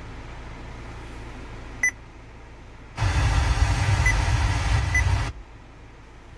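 Android car stereo's touchscreen beeping as the FM radio is tuned: three short high beeps. For about two seconds in the middle the car speakers play loud, even FM static between stations, cut off abruptly, over a low steady cabin hum.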